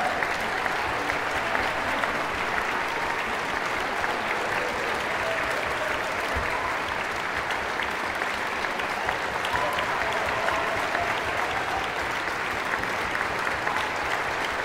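Concert hall audience applauding steadily, a dense wash of clapping that holds at an even level.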